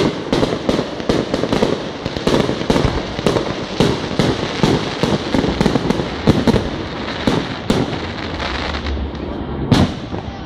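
Fireworks display: a rapid run of shells bursting with bangs and crackles, two or three a second, thinning near the end with one last sharp bang.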